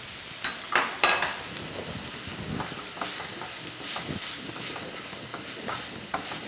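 Chopped onions, garlic and green chillies sizzling in a non-stick frying pan as a wooden spatula stirs and scrapes them in short strokes. Two sharp, ringing knocks come about half a second and one second in, the second the loudest.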